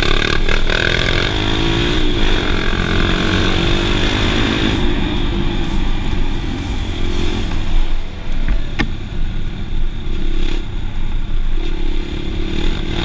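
Dirt bike engine running on the move over a gravel track, its pitch rising and falling with the throttle, over wind and tyre noise. One sharp knock about nine seconds in.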